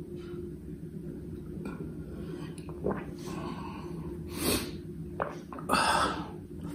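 Mouth and breath sounds of a man finishing a meal eaten with his fingers: faint licking and lip smacks, then short breathy snorts about four and a half and six seconds in, the second the louder, over a low steady hum.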